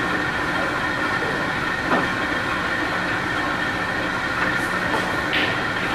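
A steady mechanical drone of room noise, with a faint click about two seconds in and another near the end.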